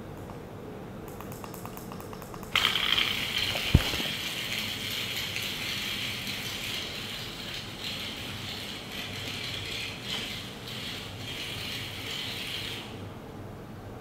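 Small geared DC motors of a toy tracked robot chassis running, a steady gear rattle and whine that starts abruptly about two and a half seconds in and stops near the end. One sharp knock comes about a second after the motors start.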